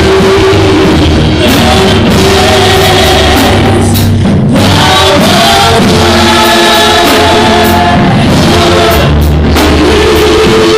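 Loud church worship music: voices singing together over a band with drums and instruments.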